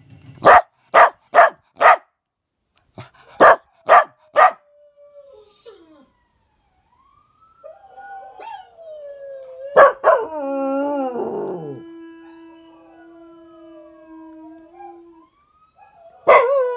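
A dog barks sharply seven times, a run of four and then a run of three, then long wavering howls follow, several voices overlapping, swelling loudly again near the end.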